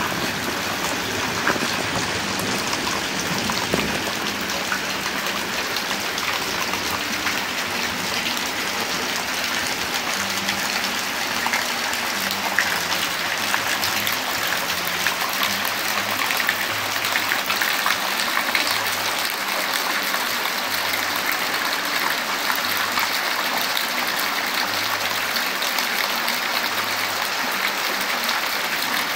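Steady rain falling, a dense even hiss with many small drop ticks hitting a surface.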